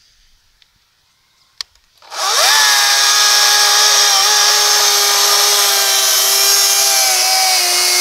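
A single click, then about two seconds in the Greenworks 40V cordless electric chainsaw's motor spins up with a rising whine and runs on at a steady, loud, high-pitched whine, with the chain's hiss over it.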